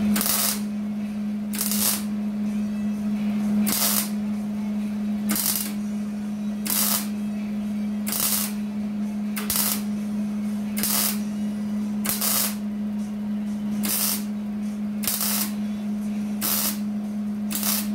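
Welder stitch-welding a sheet-metal patch: thirteen short welding bursts, each about half a second long and roughly a second and a half apart, over a steady low hum.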